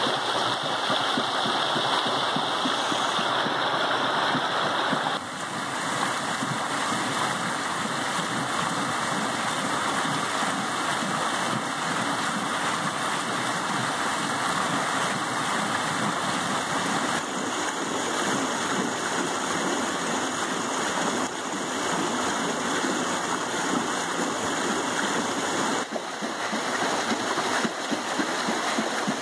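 Creek water rushing steadily down a narrow channel and churning under the paddles of a homemade water wheel.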